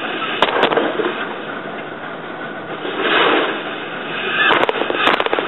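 16-shaft floor loom being worked: the wooden beater is swung against the weft with sharp clacks and rattles. A swell of rushing noise comes in the middle, and a quick run of clicks follows near the end.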